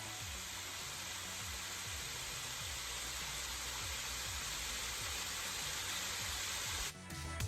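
A steady, even hiss that cuts off suddenly near the end, with faint low music underneath.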